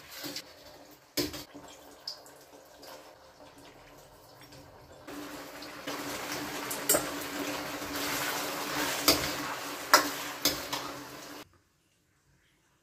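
Metal ladle stirring and scraping in a wok of bubbling sweet and sour sauce, with sharp clinks of the ladle against the wok. The pan's sizzle and bubbling grows louder about five seconds in, once the fried chicken strips are in, then the sound cuts off abruptly near the end.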